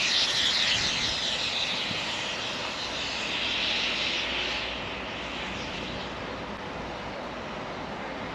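Steam locomotive venting steam as it gets ready to pull away: a loud, steady hiss that eases off about five seconds in.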